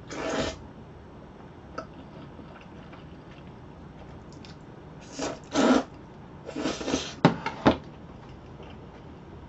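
Jjajangmyeon (black bean sauce noodles) being slurped into the mouth: one slurp at the start and three more between about five and seven seconds in. Two sharp clicks follow, chopsticks knocking against the ceramic bowl.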